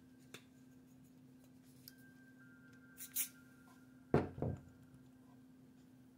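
Small handling sounds from a vintage camera being cleaned by hand: a faint tick, a brief hiss about three seconds in, and two quick rubbing strokes a little after four seconds, the loudest part. A steady low hum runs underneath.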